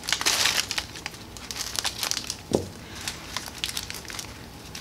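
Brown kraft packing paper crinkling and rustling as it is unwrapped from a plant, densest at the start, with scattered crackles after. A short dull thump about two and a half seconds in.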